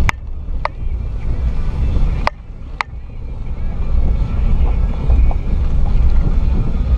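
Lifted 2006 Jeep Liberty (KJ) driving a rough off-road trail: a steady low rumble from the engine and body, with four sharp knocks in the first three seconds. The rumble dips after the third knock and builds back up a second or so later.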